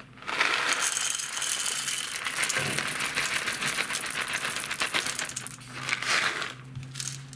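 Whole roasted coffee beans poured from a foil bag into the stainless-steel bowl of an electric blade coffee grinder: a dense rattle of beans hitting the metal for about five seconds, then another short rattle about six seconds in.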